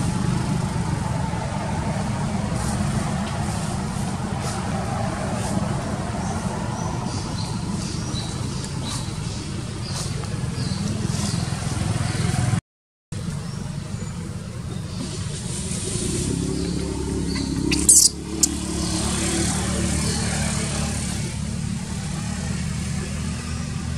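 Steady low rumble of vehicle traffic. The sound cuts out briefly near the middle, and a short sharp high-pitched sound stands out about three quarters of the way through.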